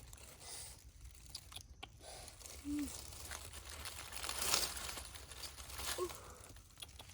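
Leaves and plant stems rustling, crunching and tearing as they are handled and picked, with two short low tones in between.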